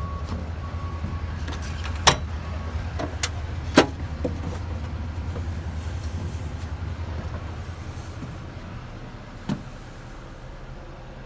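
Wheel loader cab door handle and latch clicking, with several sharp knocks as the door opens and someone climbs into the cab, over a steady low rumble. A door thump about nine and a half seconds in, after which the rumble is quieter.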